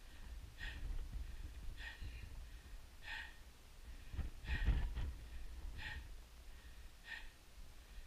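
A climber breathing hard, one breath about every second and a quarter, over a low rumble on the microphone that swells louder about halfway through.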